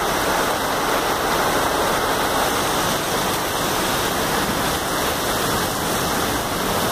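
Heavy rain with light hail pouring down on a street and its pavement: a loud, steady, dense hiss.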